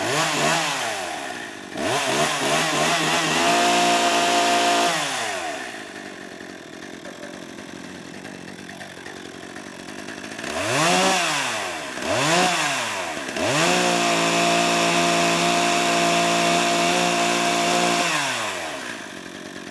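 Chainsaw engine revved up and down: quick throttle blips, then held at high revs for about two seconds, dropping to a low idle for several seconds. Near the middle there are two more quick blips, then the engine is held at high revs again for about four seconds before falling back to idle near the end.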